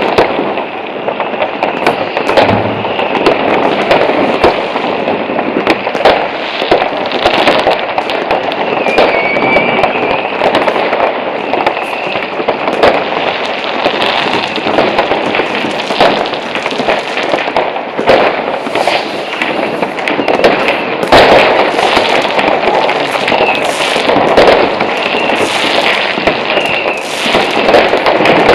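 Many fireworks and firecrackers going off at once across a town: a dense, unbroken crackle of bangs with a few short whistling rockets.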